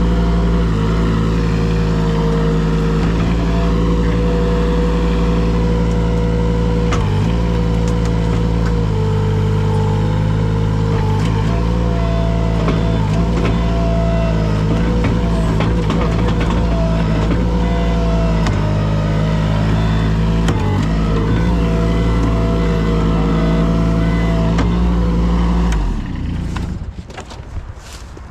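A machine's engine running steadily at a constant speed, then cutting out near the end, followed by a few knocks.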